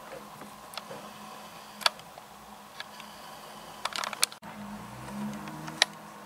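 Sharp isolated clicks and ticks over a steady low hum, with a cluster of clicks about four seconds in. After a sudden break, a low engine note briefly rises and falls in pitch.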